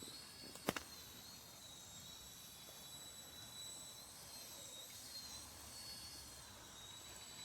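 Faint high whine of a mini toy helicopter's small electric motor and rotor, wavering slightly in pitch, with one sharp click about a second in.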